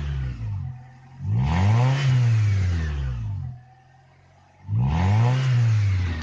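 1999 Honda Accord's stock VTEC engine with only an aftermarket exhaust tip, revved in two full throttle blips. Each rises in pitch and falls back to idle, and the tail of an earlier blip fades at the start.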